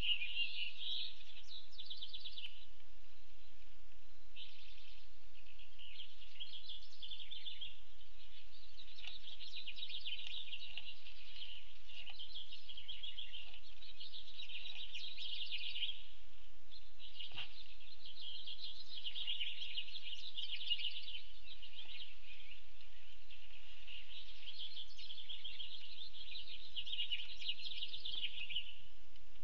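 Small birds chirping and trilling in high, rapid bouts of a few seconds each, with short breaks between them.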